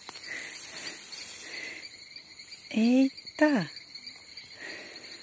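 Insects chirring in a steady, even high-pitched drone, with some soft rustling in the grass during the first couple of seconds.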